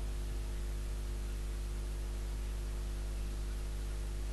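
Steady electrical hum under a layer of hiss, with nothing else over it: the recording's own noise floor.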